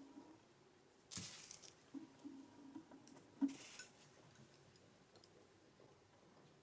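Faint handling of metal jewelry pliers and a beaded bracelet while a jump ring is closed: two brief rustles, about a second in and about three and a half seconds in, the second opening with a sharp click.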